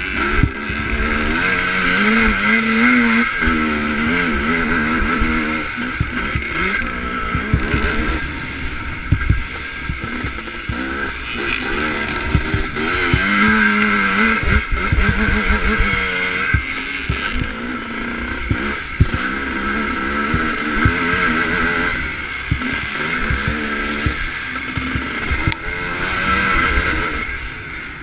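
ČZ two-stroke motocross motorcycle engine heard up close from an onboard camera, revving up and falling back again and again through the gears. Wind on the microphone and short knocks from the bumps sound along with it.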